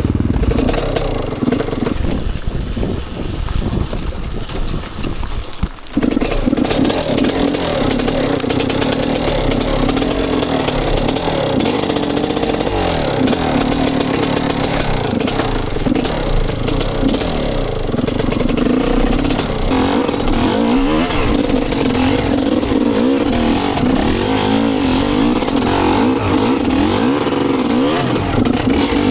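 GASGAS EC250 two-stroke enduro motorcycle engine running under load, its pitch rising and falling with the throttle. It is quieter for the first few seconds, then abruptly louder about six seconds in.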